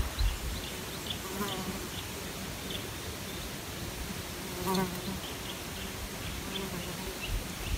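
A fly buzzing past the microphone twice, briefly about a second and a half in and again near five seconds, its pitch bending as it passes. Faint short chirps and a soft outdoor hiss lie underneath.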